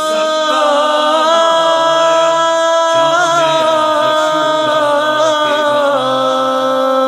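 Wordless vocal chorus holding long, slightly wavering notes that shift to a new pitch about every three seconds: the a cappella opening of a Shia nauha (lament).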